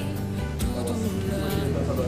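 Background music: a song with a sung melody over sustained low notes.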